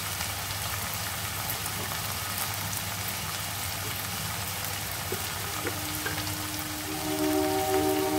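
Sliced onions sizzling steadily in hot oil in a kadai. About two and a half seconds before the end, background music comes in with long held notes.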